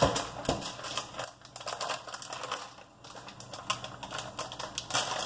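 Rapid, irregular small clicks and rustles of kitchen items being handled out of sight, busiest at the start and again from about three seconds in.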